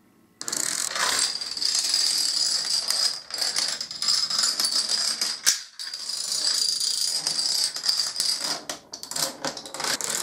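A chain of dominoes toppling on a hardwood floor: a fast, continuous clatter of many small clicks that starts suddenly about half a second in, with brief lulls around three, six and nine seconds.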